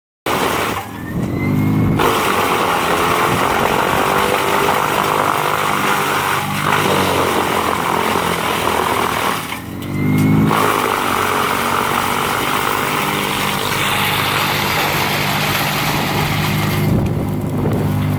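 Heavy machinery engine running loudly, rising in pitch briefly about a second in and again about ten seconds in.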